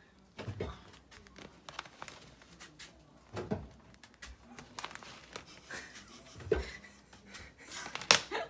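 A sulphur-crested cockatoo's beak knocking and scraping on a plastic laundry basket as it pokes through the gaps. Scattered soft clicks come with a few sharper knocks, the sharpest near the end.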